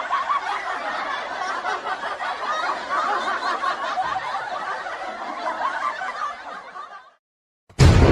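A laughing sound effect: continuous laughter that tails off and stops about seven seconds in. Loud music cuts in at the very end.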